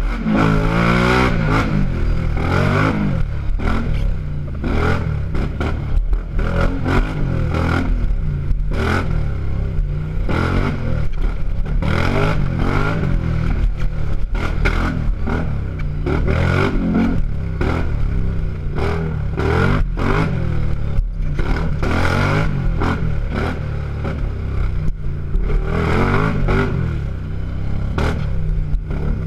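Racing ATV's engine revving up and dropping back over and over as the rider works the throttle along a rough trail, with clatter and scraping from the machine bouncing over bumps.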